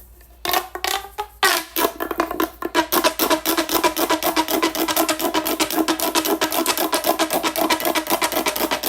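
A fidget toy worked rapidly by hand, giving a fast, even run of same-pitched clicks, about eight to ten a second, that starts about a second and a half in.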